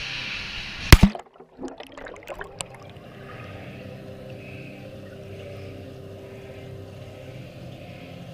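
An action camera plunges into a swimming pool: a sharp splash about a second in, a few scattered clicks and bubbles, then the steady muffled hum of the pool heard from underwater.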